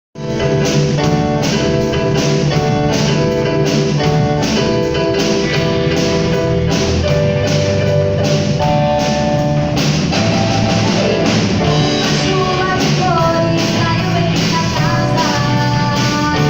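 A band playing a song with a steady drum beat under held instrumental notes; a melody line moves higher in the second half.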